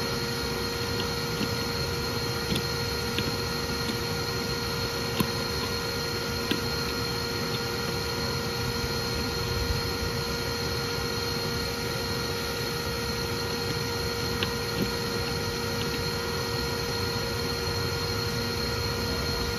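Bee vacuum running steadily: a motor whine over a steady rush of air being drawn through the corrugated hose, with a few faint ticks scattered through.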